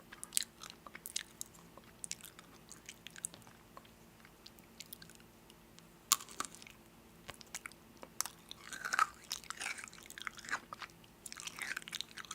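A person chewing and biting crunchy food close to the microphone: irregular sharp crunches and mouth clicks, busiest near the end. A faint steady hum runs underneath.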